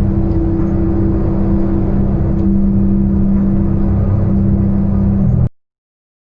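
An engine running steadily with a low, even drone, cutting off abruptly about five and a half seconds in.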